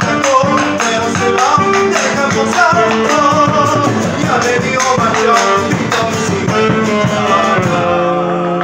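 Live Argentine gato played on bombo, acoustic guitar and tenor saxophone: the saxophone carries the melody over strummed guitar and steady bombo beats. Near the end the beating stops and held notes keep ringing.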